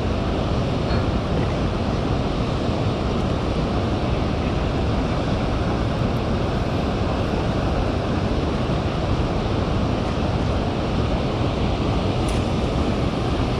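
Steady rushing of water pouring through a dam's open spillway gates and churning in the tailwater, with wind buffeting the microphone.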